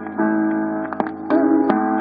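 A jigsaw record, a disc of sliced vinyl records pieced back together, playing on a Dansette record player: snatches of music that switch abruptly several times, with a sharp click where a join between slices passes the needle.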